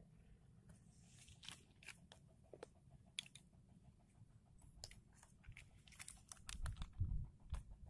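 Fresh lettuce leaves crinkling and crackling in small, irregular clicks as they are dropped into a wooden bowl, with a low rumble near the end.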